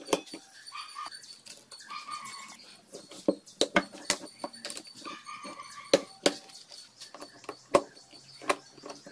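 Irregular sharp metallic clicks and clinks of a ratchet wrench and hand tools on a Honda MB50 50cc engine's clutch as the pressure plate bolts are fitted and tightened. A few short high squeaks come in between, about a second in, two seconds in and around five to six seconds.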